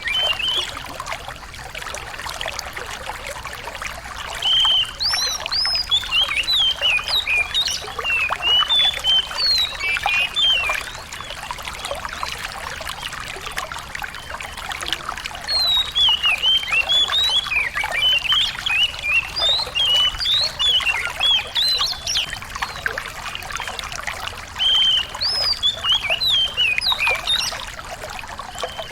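A small songbird singing in three long runs of quick, high, twittering chirps, each several seconds long with short pauses between, over a steady trickle of running water.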